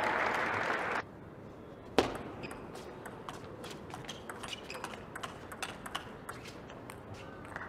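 Crowd applause that cuts off abruptly about a second in, then a table tennis rally: the plastic ball clicking sharply off the rackets and the table in quick succession, the first click the loudest.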